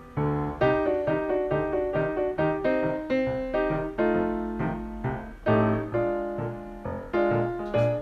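Background piano music: a gentle melody of struck notes over soft chords at a steady pace.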